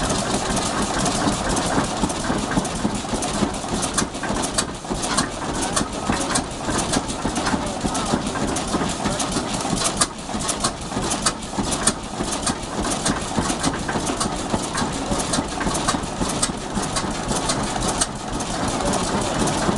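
1927 Atlas three-cylinder diesel tug boat engine running at a slow idle, with a continuous mechanical clatter and many sharp clicks and knocks through the middle of the stretch.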